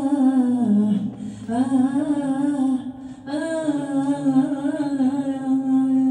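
A woman singing unaccompanied into a microphone: long, wavering, ornamented held notes in the Iraqi style, in three phrases with short breaths between them.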